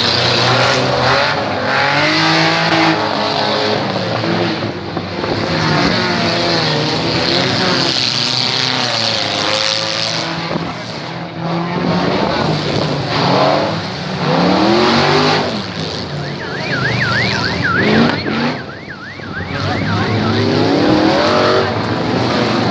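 Demolition derby car engines revving up and down, several at once, with tyres skidding.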